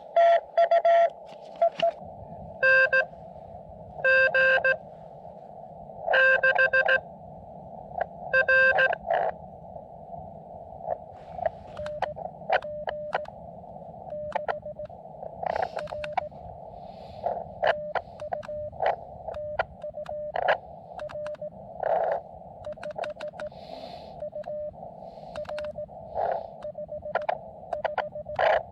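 Morse code (CW) from a portable ham radio transceiver: a keyed tone over the hiss of the receiver's narrow filter. For about the first nine seconds the tones are loud and slower, then the code goes on fainter and quicker.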